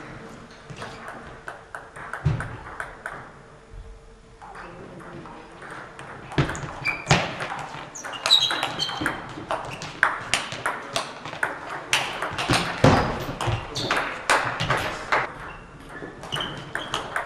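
Table tennis balls clicking off bats and table in quick, irregular succession during play, with a short lull about four seconds in.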